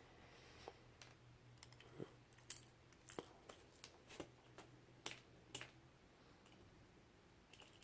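Faint, irregular clicks and taps of small lock pins and parts being handled and set down on a hard surface, about a dozen over several seconds, a few a little louder than the rest.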